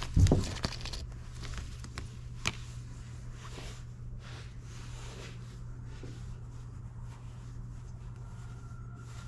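A clear plastic bag crinkling as it is handled, loudest in the first second, then faint clicks and rustles of small parts being handled, with one sharp click about two and a half seconds in, over a steady low hum.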